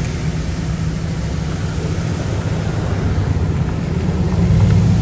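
Heavy diesel engine of earthmoving machinery running steadily as a low drone, getting a little louder about four and a half seconds in.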